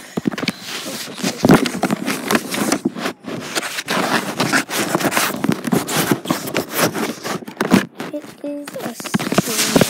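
Close, irregular crackling and scraping handling noise: paper and fabric rustling right at the phone's microphone.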